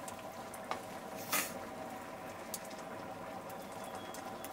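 Small snaps and crackles of green vegetable stems being broken and leaves stripped by hand, a few scattered clicks with one louder snap about a second and a half in, over a steady low hiss.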